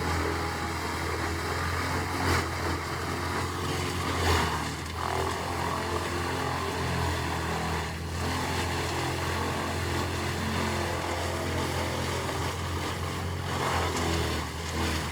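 Large wood chipper running at a steady engine drone while chipping, with a few brief knocks from wood going through.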